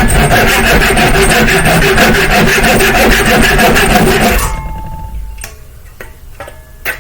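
Hand tool working wood in rapid, even scraping strokes, about seven or eight a second, stopping after about four and a half seconds. A few light knocks follow.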